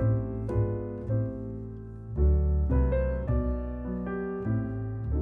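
Background piano music: a steady run of struck notes and chords over bass notes.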